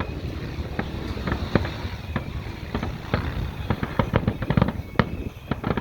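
Aerial fireworks display: a rapid, irregular stream of bangs, several a second, over a low rumble.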